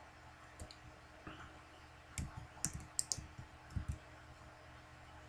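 Computer keyboard keys and mouse buttons clicking: about eight to ten short, sharp clicks, bunched mostly in the middle, as shortcuts are pressed and items selected.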